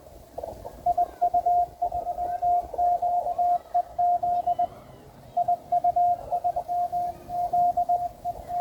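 Morse code (CW) from an amateur radio transceiver: a single steady tone keyed on and off in quick dits and dahs, in two runs with a short break about halfway through.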